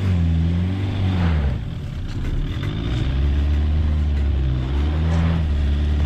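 Citroen C8 minivan's engine revving up and down as it labours up a slope of wet grass, its pitch rising and falling several times with a brief drop in revs about two seconds in.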